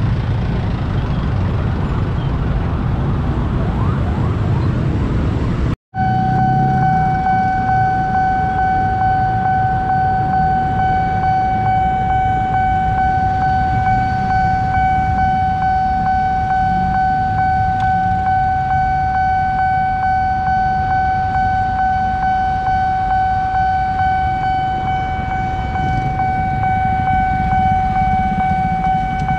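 Road traffic of motorbikes and cars at a railway level crossing. After a cut about six seconds in, the crossing's warning alarm sounds one steady high tone that holds unchanged over the traffic.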